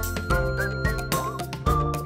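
Cheerful children's theme music: a steady bass line under regular crisp percussion taps and short high melody notes.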